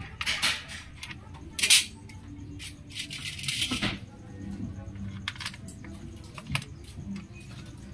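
Metal clicks and scraping of a T-handle socket wrench turning a bolt on a scooter's radiator cover. A sharp clink comes just under two seconds in, and a longer scrape runs from about three to four seconds.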